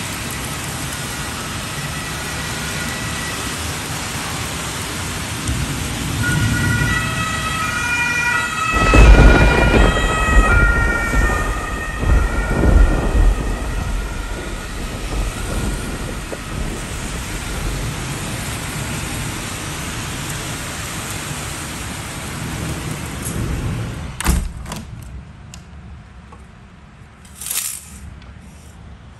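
Heavy rain falling steadily, with a loud clap of thunder about nine seconds in that rumbles on for several seconds before fading back into the rain.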